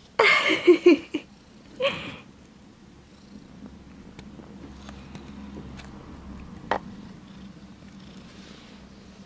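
Domestic cat purring steadily at close range, with two short, loud vocal sounds in the first two seconds and a single sharp click near seven seconds.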